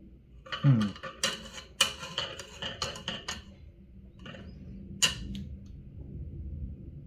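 Small hard objects clicking and clattering on a workbench: a quick run of clicks for about three seconds, then a single sharp click about five seconds in.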